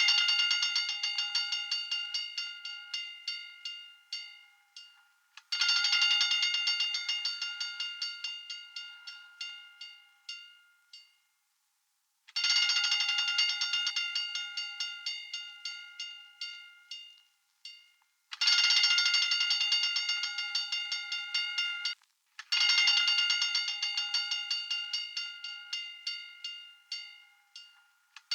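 Hand-cranked fire alarm bell ringing in about five bursts of rapid strikes. In each burst the strikes slow and fade over four to six seconds before the next burst starts loud again.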